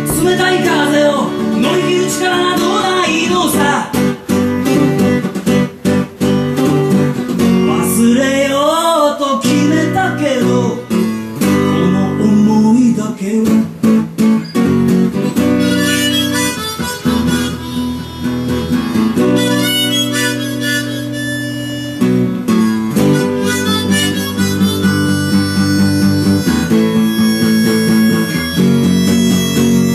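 Acoustic guitar strumming chords with a harmonica playing the melody over it; around eight seconds in, the harmonica's notes bend up and down in pitch.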